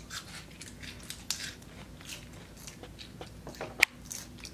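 Toddlers biting and chewing raw iceberg lettuce leaves: a scatter of short crisp crunches, with one sharper snap a little before the end.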